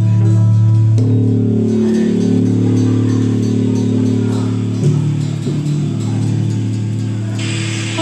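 Live band's electric guitars and bass playing long, held droning notes. A short burst of noisy hiss comes in near the end.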